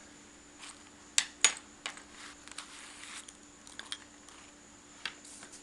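Small hard objects being handled: a series of light clicks and taps, the two sharpest close together a little over a second in, with fainter ones scattered through the rest.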